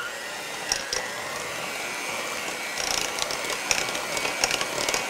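Electric hand mixer running steadily, its beaters churning a thick, lumpy banana batter in a glass bowl, with scattered clicks that grow more frequent in the second half.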